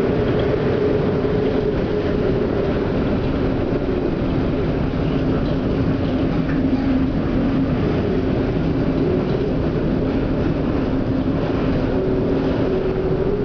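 Heavy weather aboard a ship: steady loud wind and sea noise with a low, wavering drone.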